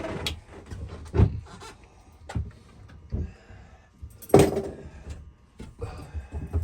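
Scattered clunks and knocks of parts and tools being handled, the loudest about four seconds in.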